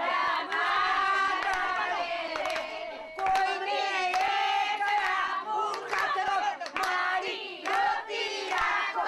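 A group of women singing together, with sharp handclaps keeping time.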